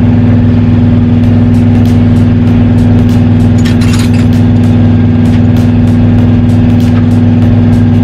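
Diesel engine of a 2005 International 7500 truck idling steadily, with light ticking over it.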